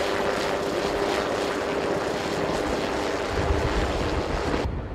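MQ-8B Fire Scout unmanned helicopter flying overhead: a steady turbine whine over rotor noise. The sound cuts off abruptly near the end.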